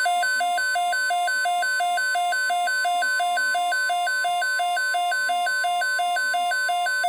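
NOAA Weather Radio receiver's alert alarm: a loud, harsh electronic tone switching between a low and a high pitch about three times a second. A steady single tone, the broadcast warning alarm tone that set it off, runs faintly underneath. It cuts off abruptly at the end as the alert message begins.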